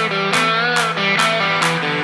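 Background music: guitar over a steady beat, with the low bass dropped out.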